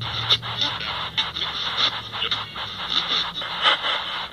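Cosmos CT spirit box app on a smartphone, playing choppy radio-like static chopped into short snippets every fraction of a second, heard through the phone's speaker.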